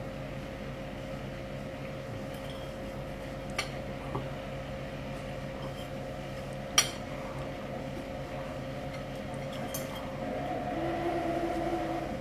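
Metal spoon clinking a few times against a ceramic soup bowl as the last of the noodle soup is scooped up, one clink sharper than the rest about seven seconds in. A steady hum runs underneath, and a louder steady tone comes in about ten seconds in.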